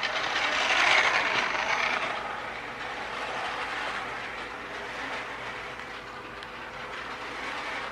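Battery-powered Menards O-scale toy track vehicles running on metal O-gauge track: a steady whir of small electric motors and gearing with wheels rolling on the rails, loudest in the first couple of seconds.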